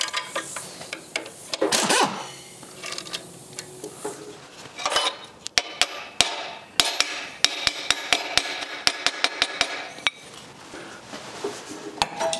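A metal tool knocks and prises at the joint of a classic Mini's steel exhaust pipe sections to work them apart. A scraping rattle is followed by a quick run of sharp metallic knocks, about three a second, each ringing briefly in the pipe.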